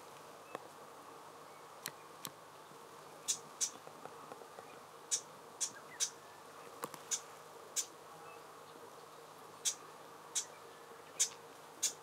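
Japanese bush warbler giving its call notes: short, dry, sharp ticks repeated at irregular intervals of about half a second to a second. A faint steady hum lies beneath them.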